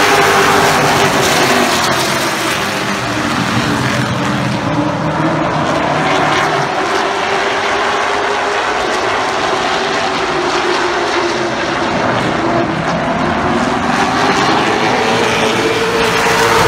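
A field of short-track stock cars running past on the paved oval, their engines droning continuously. The engine note drops as the pack goes by early on and climbs again near the end as cars come back around.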